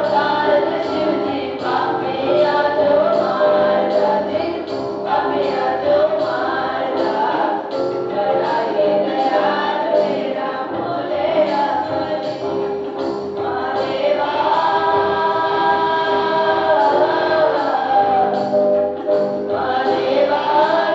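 A group of students singing together in chorus, accompanied by an electronic keyboard holding chords under a steady beat.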